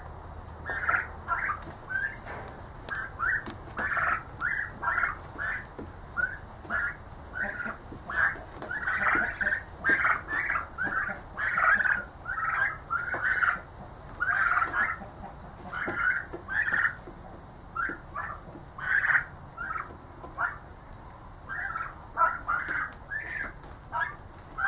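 Young turkeys trilling as they feed on fresh grass: a steady run of short calls, one or two a second, with some calls overlapping.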